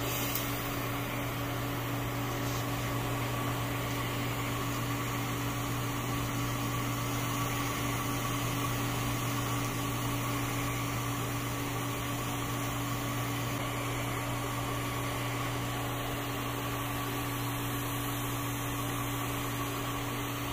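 TIG welding on DOM steel roll-bar tubing: the welder and arc give a steady, even hum with a hiss over it.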